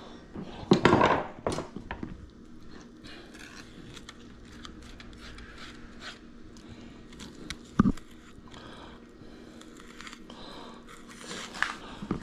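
Fillet knife cutting and scraping along a longnose gar's backbone as the loin is sliced off, with small wet crackles and clicks and a few sharp knocks, the loudest about a second in and again near eight seconds.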